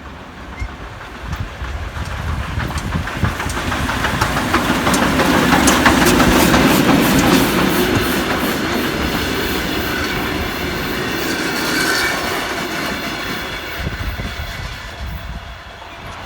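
Soviet L-class steam locomotive L-3108 with its passenger train passing by, getting louder to a peak about six seconds in and then fading, the wheels clattering over rail joints.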